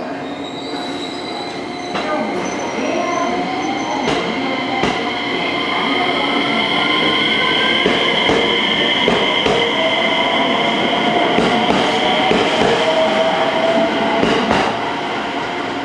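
JR West 227 series electric train pulling out of the platform. Its motors whine in a tone that rises in pitch as it speeds up, over a steady high-pitched squeal and occasional clacks from the wheels.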